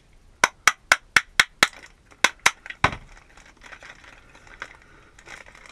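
Door lock cylinder being turned with its key in a new lock: a quick run of about ten sharp metallic clicks, roughly four a second, ending in a duller knock, then a few faint ticks.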